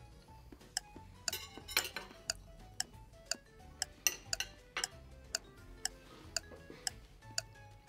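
Background music with a steady ticking beat, about two ticks a second, and short pitched notes.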